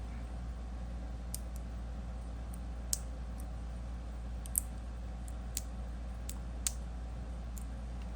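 Light, sharp clicks of small magnets and stainless steel fidget slider parts being handled during a magnet swap, about ten at irregular intervals, over a steady low hum.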